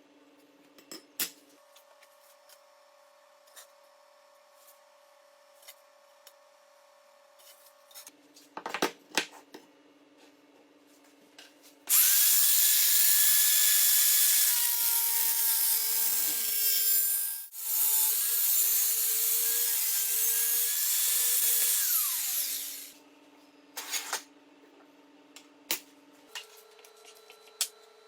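An electric power tool spins up about twelve seconds in and runs loudly for roughly ten seconds, with a brief break midway, then winds down. Scattered light clicks and knocks come before and after it.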